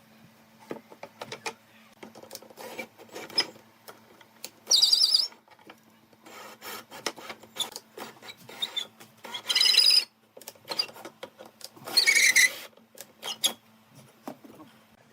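Hand work on wood: light knocks and clicks of handling, with three short, loud scraping strokes about five seconds apart, like a rasp or file worked across wood.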